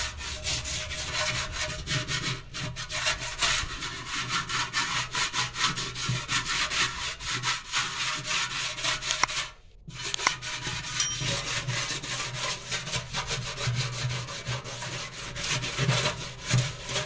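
A half lemon coated in baking soda and detergent powder rubbed in quick, gritty strokes over a stainless steel sink, with a brief pause about ten seconds in.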